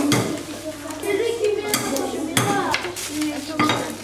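Dishes and utensils clattering on a table, with several sharp knocks and clinks, over children's voices chattering.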